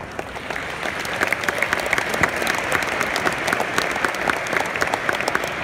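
Audience applause, many people clapping; it builds up about a second in and keeps going.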